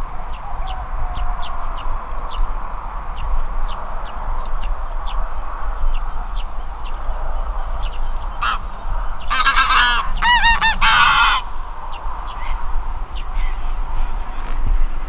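Flock of wild geese honking in flight, many short calls overlapping, with a louder burst of calling about nine to eleven seconds in.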